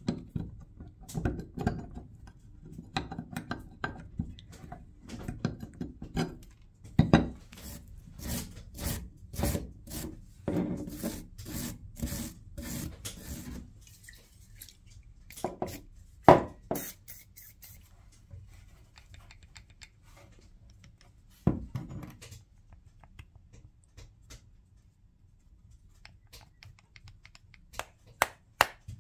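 Clinks, scrapes and knocks of metal parts being handled: the gear plate with its two shafts and toothed gears from an old Babcock milk-fat tester being worked out of its iron housing and turned over in the hand. The handling is busiest in the first half, then gives way to a few separate knocks and a quick run of clicks near the end.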